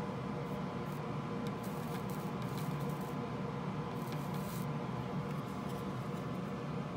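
A steady electrical hum with brief scratchy rustles of handling noise, one from about one and a half to three seconds in and a shorter one about four seconds in.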